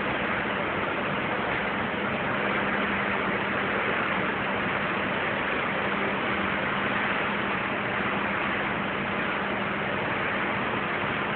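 Cruise ship under way at sea: a steady rushing noise with a constant low hum underneath, the sound of the wake and the ship's machinery.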